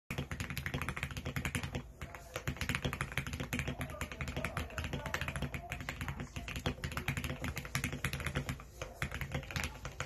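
Fast typing on a GMMK Pro mechanical keyboard fitted with Alpaca linear switches, PBT keycaps, Goat-lubed stabilizers and PE foam plus plate foam: a dense, continuous run of keystrokes with a short break about two seconds in.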